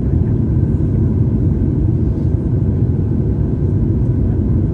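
Airliner cabin noise inside a Boeing 737: a steady low rumble of the engines and the airflow over the fuselage.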